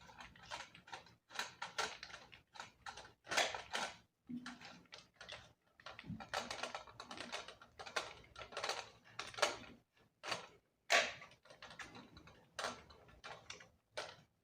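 Irregular clicks, taps and brief rustles from plastic parts of a ring light and its stand being handled and fitted together.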